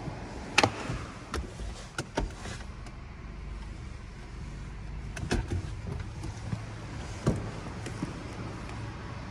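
A car idling with a low steady hum, broken by a few sharp clicks and knocks: a cluster in the first two or three seconds, then single ones about five and seven seconds in.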